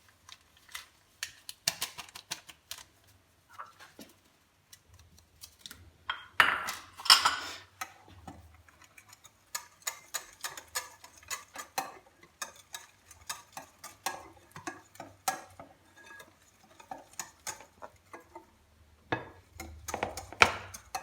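Kitchen utensils working in a mixing bowl: many light, irregular clicks and taps of metal and glassware, with a louder rustling scrape about six to seven seconds in, as baking powder is added to cake batter.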